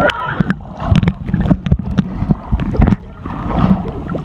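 Muffled underwater recording of a swimmer moving through the water: bubbles and water churning against a phone in a waterproof pouch, heard as low rumbling with many scattered sharp clicks.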